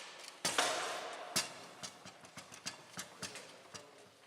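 Foosball table in play: a loud crack about half a second in that rings off over a second, then scattered sharp knocks of the ball and rod men.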